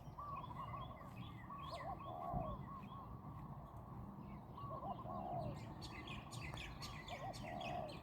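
Birds calling outdoors: a dove's rolling phrase of quick coos, repeated about four times, with small birds chirping higher over it.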